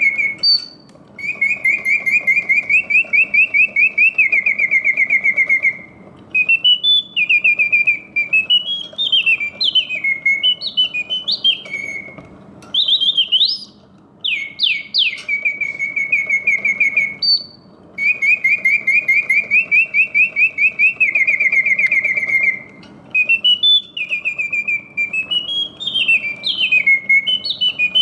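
Karl Griesbaum double singing bird cage automaton singing: its bellows-blown whistle plays fast warbling trills and runs of quick rising and falling swoops, the phrases repeating with short breaks, over a faint low whir from the mechanism. It sings in full voice, hitting all its oscillating notes, which shows the mechanism and bellows working as they should.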